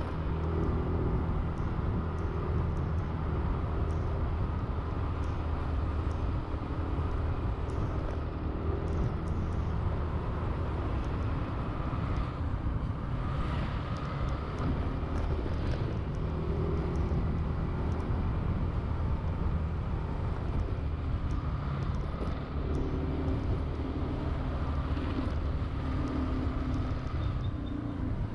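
Honda Zoomer-X scooter's single-cylinder engine running while riding in traffic, its pitch shifting a little with the throttle, over steady road noise. A few brief louder noise bursts come from passing traffic around the middle and near the end.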